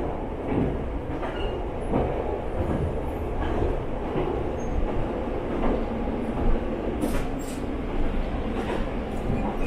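KTR700 diesel railcar running along the line, heard from inside the passenger cabin: a steady rumble of engine and wheels on the rails, with a few sharp, irregular knocks.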